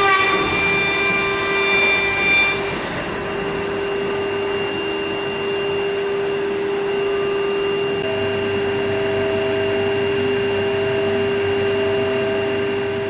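Automatic edge banding machine running, its motors giving a steady whine with extra tones that come and go as the trimming and polishing units work.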